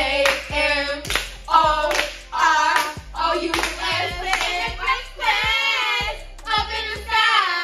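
A recorded song playing: a sung vocal line over a steady bass line, with handclaps on the beat about twice a second.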